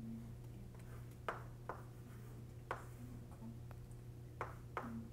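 Chalk writing on a blackboard: light sharp taps and short scrapes as figures are written, about half a dozen in a few seconds, faint over a low steady hum.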